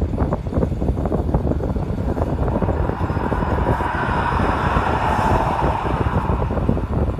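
Steady vehicle road rumble with wind buffeting the microphone. A rushing hiss swells up in the middle and fades again, like another vehicle going past.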